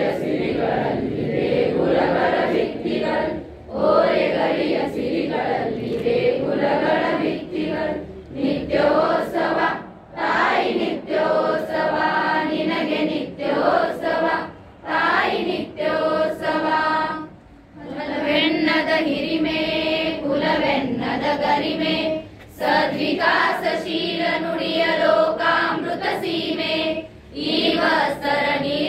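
A large group of schoolchildren singing a song together, in long phrases broken by short pauses for breath.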